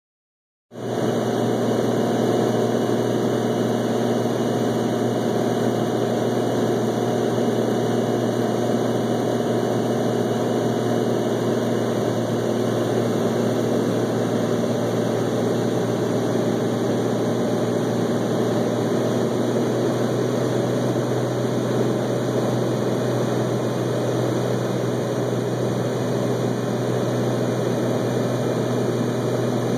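Cessna 206 single-engine plane's six-cylinder piston engine and propeller droning steadily in flight, heard from inside the cockpit. The sound cuts in abruptly just under a second in.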